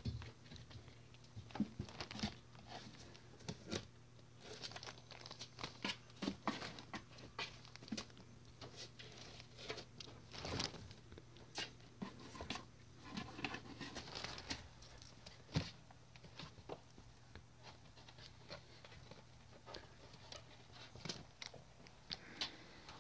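Three- to four-week-old kittens scrambling and pawing at a box and a plastic bag: many irregular scratches, rustles and crinkles, over a faint steady hum.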